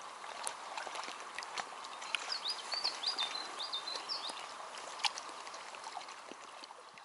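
Water lapping and small splashes around a wading angler, with many short ticks and clicks. A bird chirps a short run of high notes about two seconds in.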